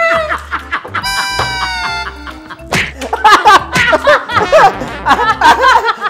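People laughing and shrieking while slapping at each other in play, with a sharp smack a little before the middle. A steady sound-effect tone is held for about a second, roughly a second in.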